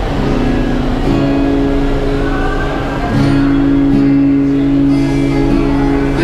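Yamaha acoustic guitar, amplified through a Roland Cube Street EX, playing held chords that ring out and change about a second in and again about three seconds in.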